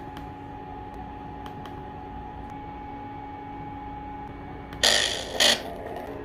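Steady hum with a faint hiss from a speaker system, then about five seconds in two short, loud, noisy blasts of a sound effect played back through the speakers.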